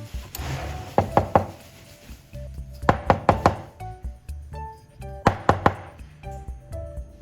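Three quick clusters of sharp knocks, three or four strikes each, about two seconds apart, over background music.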